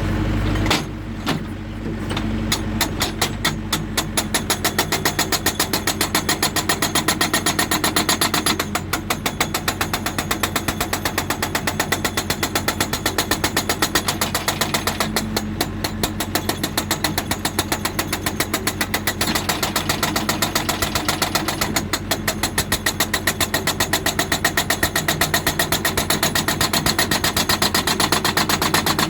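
Hydraulic breaker on a JCB 3D backhoe loader hammering rock in a rapid, even rhythm over the machine's running diesel engine. The hammering starts about two seconds in.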